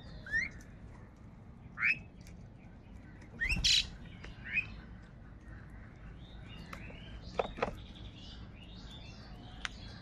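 House crows and small birds such as pied starlings calling: scattered short calls, several rising in pitch, with a louder harsh call about three and a half seconds in. Lighter chirping and a few sharp ticks come in the second half.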